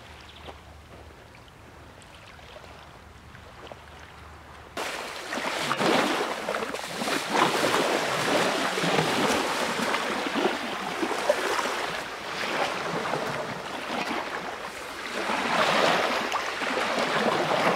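Small sea waves washing onto a sandy shore, with wind blowing across the microphone. The first few seconds are faint; then the surf and wind come in suddenly, about five seconds in, and swell and ease in surges.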